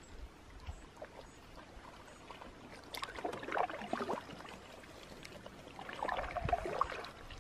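Water splashing and pouring in two short bursts, about three seconds in and again near the end, over quiet open-water surroundings.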